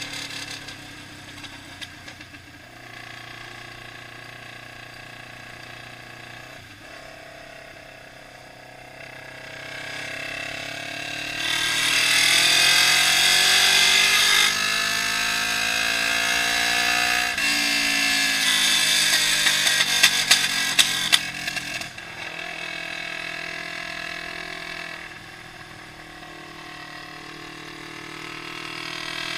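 Honda CB500 motorcycle engine and exhaust under way. The revs climb as it accelerates from about ten seconds in, dip at a gear change and climb again. Then the throttle closes and it settles to a lower, quieter note, picking up again near the end.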